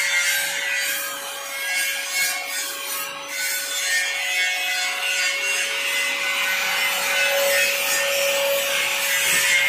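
Hose-fed paint spray gun spraying paint: a steady hiss of air and paint with a steady hum underneath, getting a little louder in the second half.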